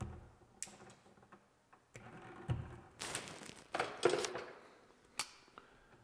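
Wire insulation being stripped by hand with a tool: a few sharp clicks and, about three to four seconds in, two short scraping rasps.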